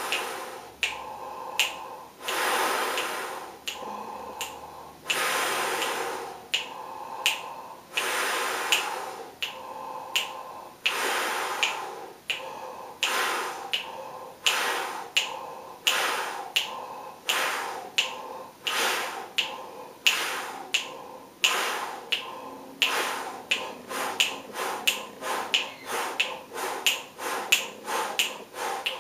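A person breathing forcefully in and out through an open mouth in counted breaths, kept in time by finger snaps. The breaths get shorter and the snaps come faster toward the end as the counts drop, the Breathing Gym's shortened inhalation and exhalation drill for brass players.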